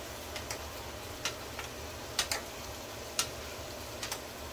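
A spoon clicking lightly against a pot or jar: about eight short, irregularly spaced ticks over the low, steady hiss of food cooking on the stove.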